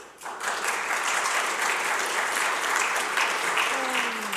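Audience applauding: a roomful of people clapping together, starting just after the beginning and easing off near the end.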